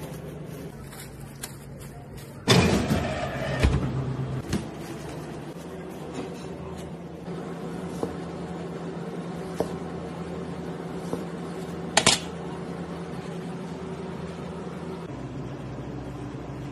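Steady electrical hum of a commercial kitchen. Plastic wrap crinkles loudly for about a second and a half, starting two and a half seconds in, as meat is rolled up in it. Later come a few sharp taps of a cleaver on the cutting board.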